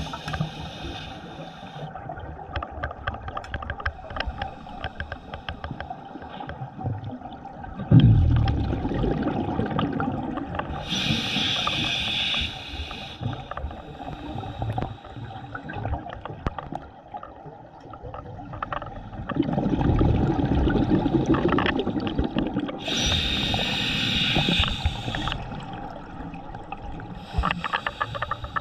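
Scuba diver breathing underwater through a sidemount open-circuit regulator: two slow breaths, each a rush of bubbling exhaled air followed by a short hiss of inhalation through the regulator.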